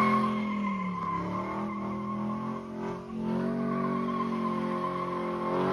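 Hot rod doing a burnout: the engine is held at high revs while the rear tires squeal steadily. The engine note dips about a second in and climbs again near the end.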